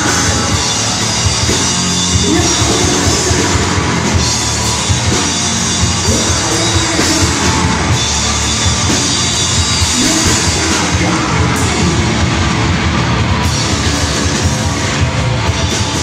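Blackened hardcore band playing live and loud: distorted electric guitar and drum kit, with screamed vocals.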